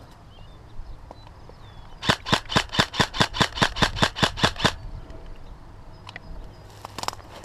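Airsoft electric rifle, a G&G CM16 Raider, firing a string of about thirteen shots at about five a second, lasting some two and a half seconds. Near the end come a couple of fainter shots.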